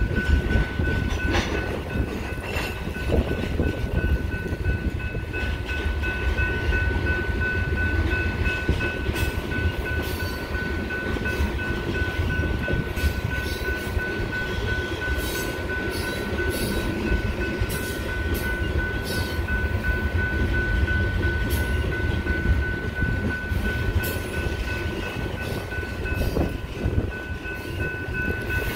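Freight cars (covered hoppers and tank cars) rolling slowly past over a grade crossing: a steady low rumble of wheels on rail with scattered clicks and clanks. A steady high-pitched tone sounds throughout.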